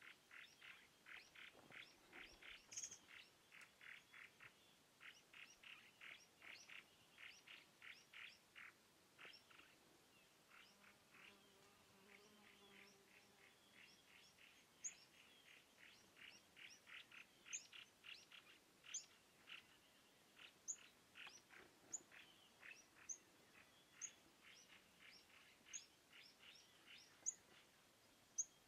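Faint birds chirping: one repeats a short chirp about three times a second, and from about halfway high, thin chirps come in roughly once a second.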